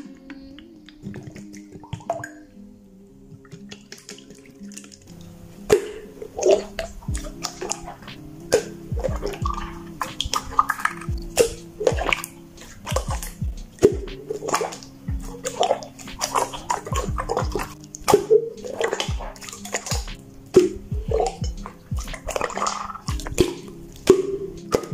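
Slime being squeezed and poked by hand, making rapid wet pops and clicks, starting about five seconds in, over soft background music.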